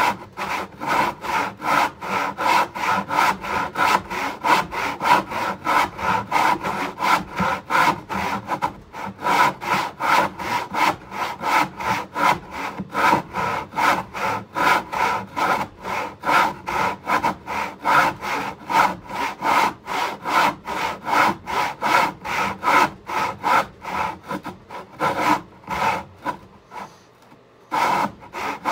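Hand saw cutting through a poplar board in steady back-and-forth strokes, about two to three a second, pausing briefly near the end before sawing resumes.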